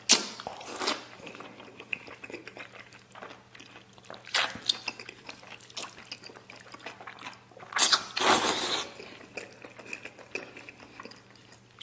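A person slurping spicy noodles from broth in big mouthfuls: three loud slurps, near the start, about four seconds in and about eight seconds in, with chewing and small clicks of chopsticks between them.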